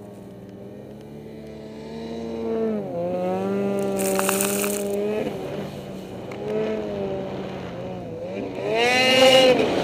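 Ski-Doo snowmobile engine revving as it rides through deep powder, its pitch rising and falling with the throttle; it climbs about three seconds in and again near the end, where it is loudest. Hissing rushes of snow spray come about four seconds in and near the end.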